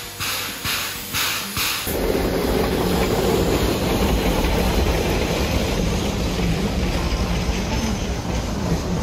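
Shay geared steam locomotive chuffing in even exhaust beats, about two or three a second, as it pulls away. About two seconds in, the sound gives way to the steady rolling rumble of the train passing close by.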